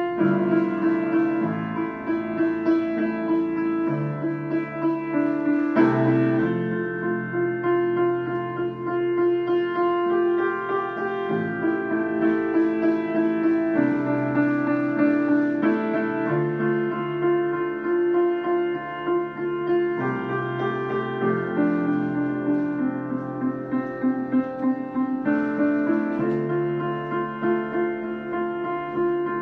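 Solo piano improvisation: a held note in the middle register keeps sounding over low chords that change every couple of seconds, with a quick repeated figure in the lower notes about two-thirds of the way through.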